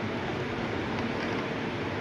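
Gas stove burners running with a steady rushing noise under the cooking pots, with a faint clink about a second in.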